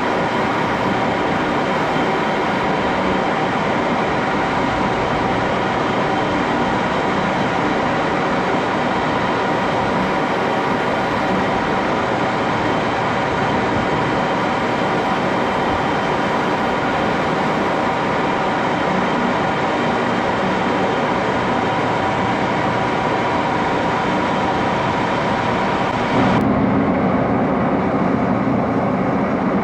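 1941 Axelson engine lathe running steadily, a machine whine of several steady tones over a hiss. About 26 seconds in the sound changes abruptly: the hiss drops away and a lower hum comes up, slightly louder.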